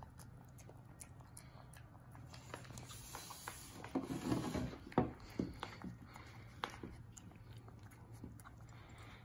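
Pomeranian puppy eating from a glass dish: quiet chewing and lapping with many small clicks of teeth and tongue against the glass. About four seconds in comes a louder stretch of scraping and a few sharp knocks as the glass dish is held and shifted on the wooden table.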